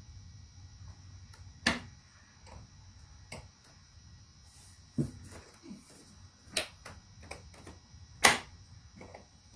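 Sharp clicks and knocks of hard plastic trim pieces and tools being handled as interior trim is taken apart, five louder ones about a second and a half apart with fainter ticks between.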